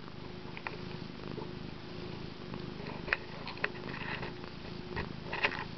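Domestic cat purring steadily, close to the microphone, with a few light clicks partway through and near the end.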